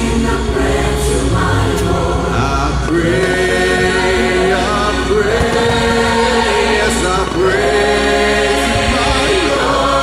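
Choral music played loud for a fireworks show: a choir sings long held notes that slowly shift in pitch.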